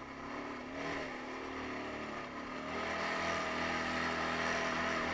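Taotao 150cc ATV's single-cylinder engine revving up as the quad gets moving on the trail. It gets louder about three seconds in and then runs steadily under throttle.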